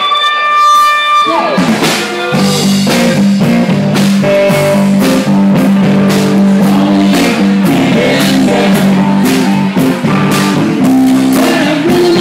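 Live band playing bluesy rock, with guitar over a drum kit. A held high note at the start slides down in pitch about a second in, and the full band carries on.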